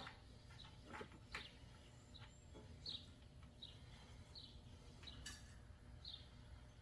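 Near silence with a faint bird chirping, short high chirps repeating every second or less, and a few faint clicks near the start.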